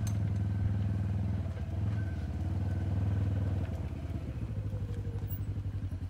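A vehicle engine running steadily, a low hum with a pitch that holds; a little past halfway it drops slightly in level and begins to pulse quickly and evenly.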